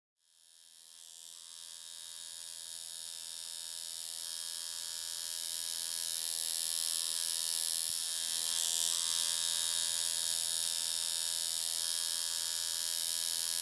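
Electric tattoo machine buzzing steadily while tattooing skin, fading up from silence over the first several seconds.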